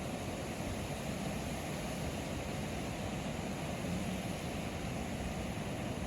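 Steady rushing noise with no distinct events, strongest in the low range.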